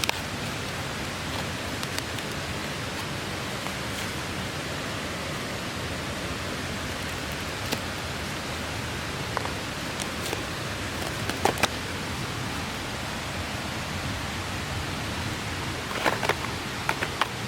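Steady rushing of a clear mountain stream, with a few short sharp clicks and a quick cluster of them near the end.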